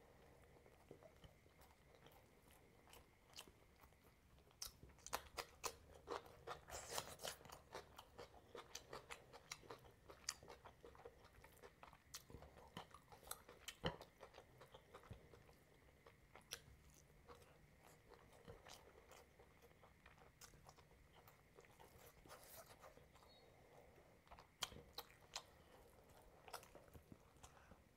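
Close-miked chewing and biting of meat curry eaten by hand: quiet, wet mouth clicks and small crunches that come in clusters, busiest from about five seconds in and again near the end.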